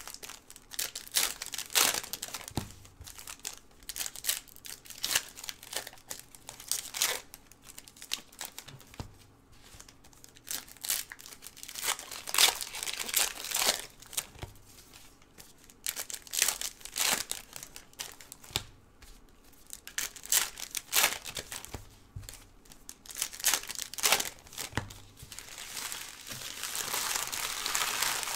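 Trading card pack wrappers being torn open and crinkled by gloved hands, in a string of short, irregular rustles and tears. Near the end comes a longer, steady rustle.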